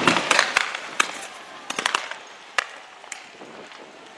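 A rapid series of sharp cracks and pops, thickest in the first second and then thinning to scattered single cracks.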